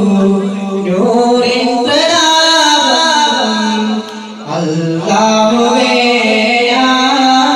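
A man singing an Islamic devotional song through a microphone, a chant-like melody of long held, gliding notes. The singing drops away briefly about four seconds in.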